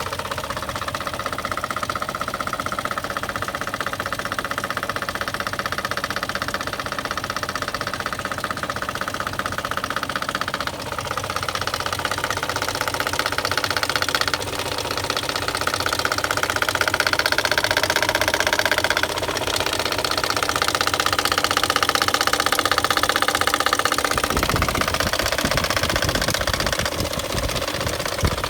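BMW M62B44TU 4.4-litre V8 idling with a knock from the front of the engine, in the area of the VANOS units. The knock comes only while the engine is warming up, not cold and not fully hot. A low rumble joins in for a few seconds near the end.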